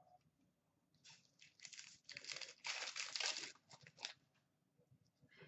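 Wrapper of a 2015-16 Upper Deck hockey card pack being torn open and crinkled: a run of tearing and rustling from about one second in to about four seconds, loudest in the middle.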